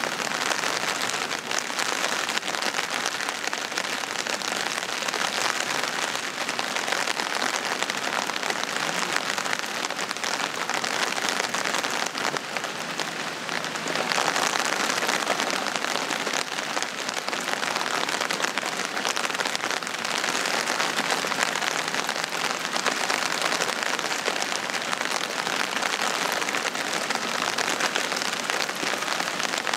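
Steady spring rain falling on a camping shelter's fabric, an even, unbroken hiss dense with fine drop impacts.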